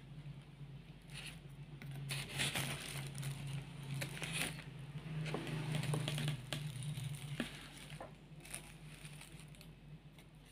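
Metal spoon scraping through rice and fried chicken in a plastic-lined foam takeaway box, with the plastic lining crinkling in irregular bursts. A steady low hum lies underneath and fades about three quarters of the way through.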